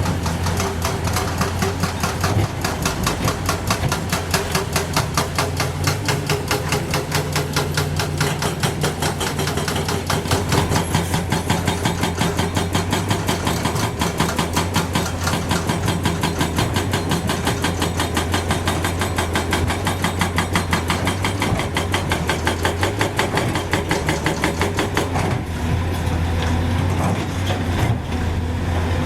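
Heavy construction machine's diesel engine running steadily, with an even, fast pulsing clatter of about five beats a second over a deep hum.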